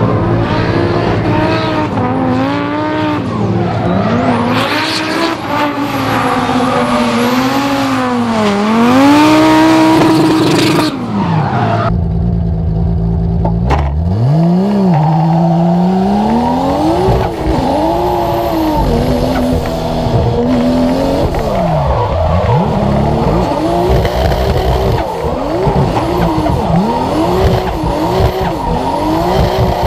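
Drift car engines revving hard, the pitch climbing and dropping again and again as the driver works the throttle, with tyre squeal. About twelve seconds in, the sound changes from a car drifting past to the engine heard from inside a drift car's stripped cabin.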